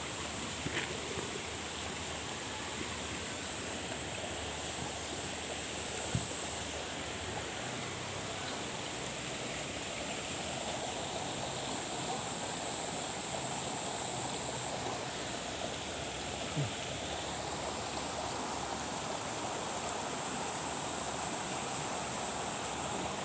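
Steady rushing water noise, even and unbroken, with a thin steady high whine running over it.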